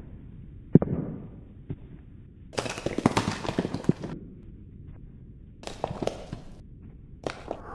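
Sharp cracks and pops: a single one about a second in, then a dense burst of rapid cracks lasting about a second and a half, and shorter bursts near the end.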